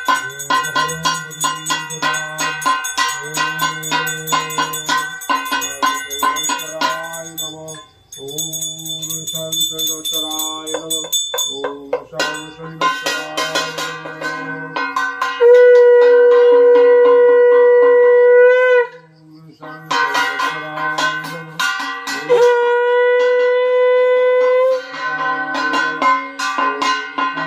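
Conch shell (shankha) blown twice, each a steady note held about three seconds, over continuous rapid ringing of a puja handbell.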